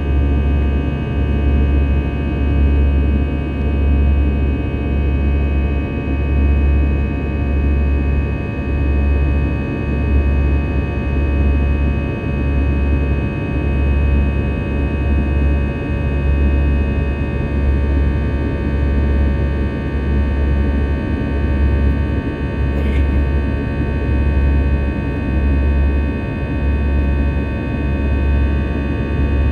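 Airbus A320 jet engines heard inside the cabin during the climb after takeoff: a steady drone made of several held tones over a rushing noise, with a low rumble that throbs in regular beats.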